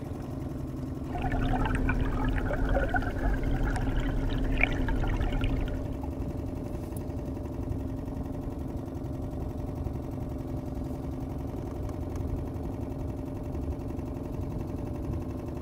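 Boat motor running steadily. From about a second in until about six seconds in, water splashes and rushes loudly over it.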